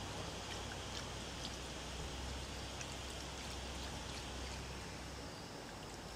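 Milk pouring from a carton in a thin stream onto a bowl of raw ground-beef mixture: a soft, steady trickle with faint ticks. A low hum underneath stops near the end.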